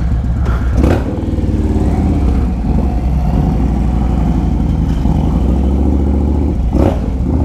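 Yamaha Road Star Warrior 1700's air-cooled V-twin running at low revs as the motorcycle pulls away slowly.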